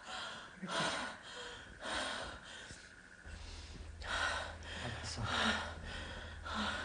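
A woman in labour breathing hard through contractions: a series of heavy, gasping breaths, roughly one a second, with a few short low moans. A steady low hum comes in about halfway through.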